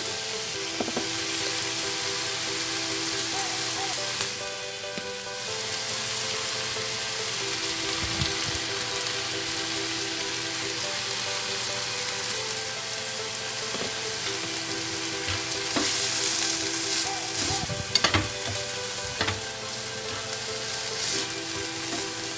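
Sweet corn kernels and diced carrots sizzling steadily in hot oil in a frying pan. A few sharp clicks near the end are a spatula knocking against the pan as the vegetables are stirred.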